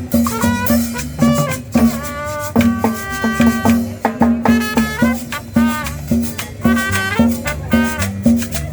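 Latin dance music, cumbia-style, with a steady beat and shaker rhythm.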